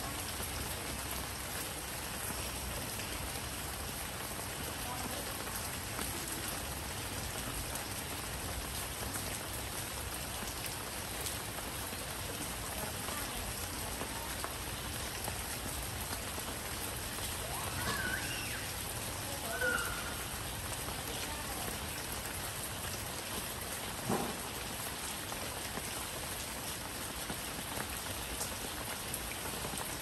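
Steady rain falling, an even unbroken hiss of drops, with one short knock about three-quarters of the way through.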